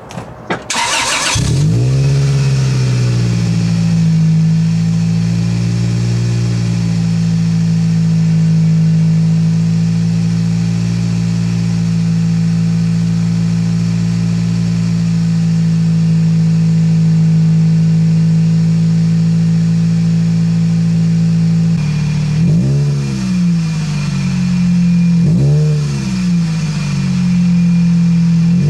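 Toyota 2ZZ-GE four-cylinder engine breathing through an aftermarket TRD muffler: it starts about a second in and settles into a steady idle, then is revved three times near the end, each rev rising and falling back quickly. The muffler is quiet at these low revs, sounding much like stock.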